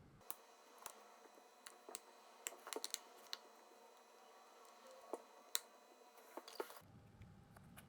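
Faint, irregular light clicks and taps, about a dozen spread unevenly, from a phone and small tools being handled on a repair bench.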